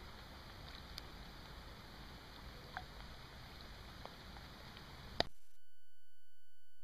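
Faint hiss with a few light clicks and a thin high whine; about five seconds in, a sharp click and a steady electronic tone at several pitches takes over.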